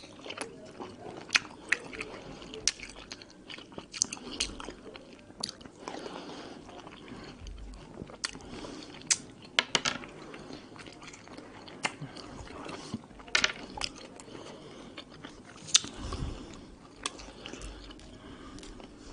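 Biting and chewing of peeled mandarin orange segments, with irregular sharp clicks about one a second.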